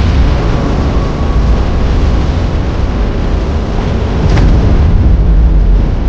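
Loud, continuous deep rumble of dramatic action sound effects, like an explosion or eruption, with a sharp crack about four seconds in.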